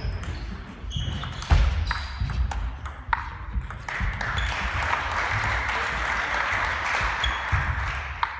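Table tennis ball clicking off bats and the table in a rally, a string of sharp hollow hits, some with a short high ring, the sharpest about a second and a half in. From about four seconds in until near the end a steady hiss runs under the hits.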